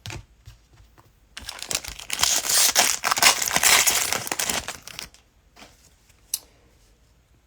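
Cellophane wrapper of a trading-card cello pack crinkling and tearing as it is ripped open, for about three and a half seconds, followed by a few light clicks.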